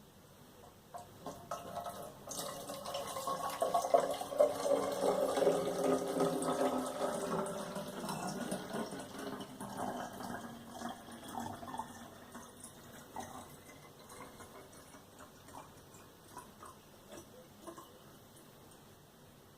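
Distilled water being poured into a PC water-cooling loop's reservoir, building up about a second in and tailing off after about twelve seconds, with a resonant tone that slides down in pitch while it pours.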